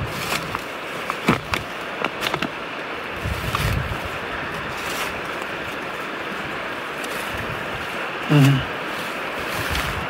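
Shallow mountain river rushing steadily over stones, with dry twigs and brush snapping and crackling in the first couple of seconds as someone pushes through the undergrowth.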